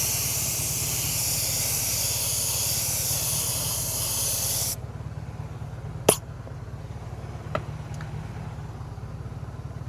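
Clear coat being sprayed onto a repaired alloy wheel: a steady high hiss for about five seconds that cuts off suddenly. A sharp click follows a second later and a fainter one after that, over a steady low hum.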